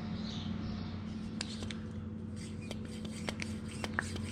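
Hand shock pump being worked on the air valve of an SR Suntour air suspension fork: a scatter of small irregular clicks and rubbing, starting about a second and a half in, as air pressure is pumped into the fork.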